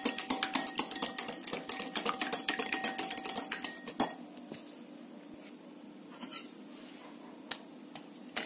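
Metal wire whisk beating an egg in a glass bowl: rapid clinking of the wires against the glass, which stops about halfway through. A few faint taps follow.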